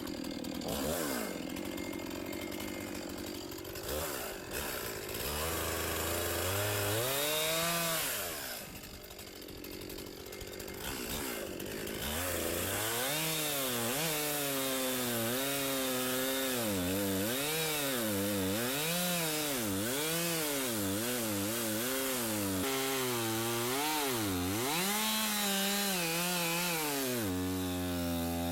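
Two-stroke chainsaw cutting into the trunk of a dead ash tree, its engine pitch sagging and recovering about once a second as the chain loads up in the wood and is eased back.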